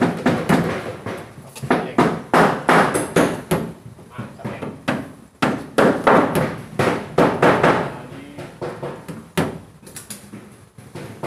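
Irregular knocking and tapping of hand tools on plywood wiring boards, with several sharp knocks, the clearest about two, five and nine seconds in, among a clatter of work noise.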